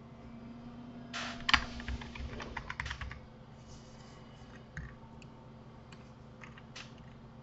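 Computer keyboard typing: a quick run of about a dozen key clicks starting about a second in, followed by a few scattered single key presses.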